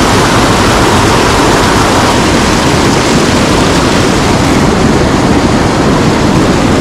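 Mountain stream running high with snowmelt, its water rushing loudly and steadily.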